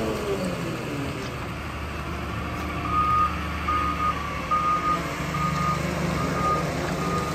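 Doosan DX170W-5 wheeled excavator's diesel engine running steadily, with its reversing alarm starting about three seconds in: a regular series of single-pitch beeps, a little over one per second, as the machine moves.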